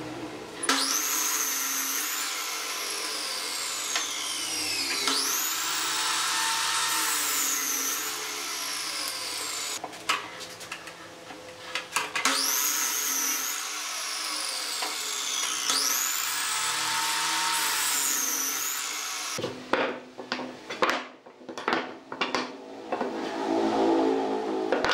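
Electric compound miter saw cutting wooden boards, started four times: each time the motor's whine rises quickly to speed and then falls away slowly as the blade winds down after the cut. Near the end, boards knock and clatter as they are laid on a wooden workbench.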